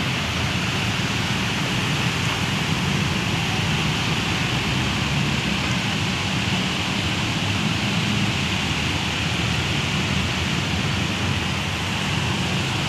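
Steady, even noise of traffic passing through shallow flood water on a city road.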